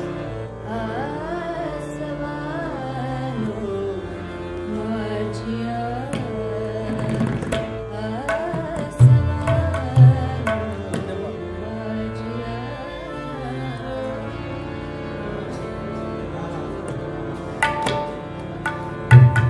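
A woman singing the opening of a Marathi ghazal in a sliding, ornamented line over harmonium accompaniment. Tabla comes in with a couple of deep strokes about nine seconds in, and again with several strokes near the end.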